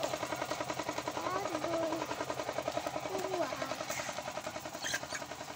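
Small engine idling nearby with a rapid, even putter, with a few faint gliding calls or voices over it.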